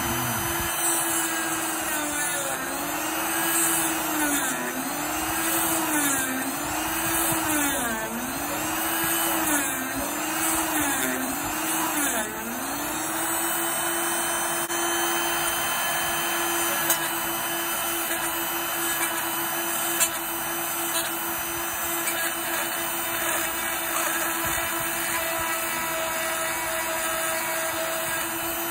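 Homemade mini drill built around an RS560 DC motor, running at high speed with a steady whine. Its pitch sags and recovers about seven times in the first twelve seconds as the small bit is pushed into wood to bore holes, then holds steady.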